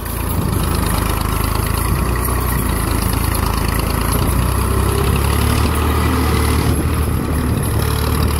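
Massey Ferguson 240 tractor's three-cylinder diesel engine running steadily under load, hauling a heavily loaded sugarcane trolley over a rutted dirt road. The engine drone gets louder just after the start and stays loud.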